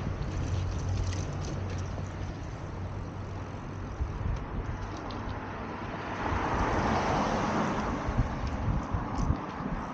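A vehicle passing in outdoor traffic: its noise swells about six seconds in and fades about two seconds later.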